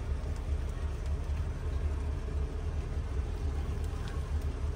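Toyota Land Cruiser 70 Series pickup's 4.0-litre 1GR-FE V6 petrol engine idling, a steady low rumble heard from inside the cab.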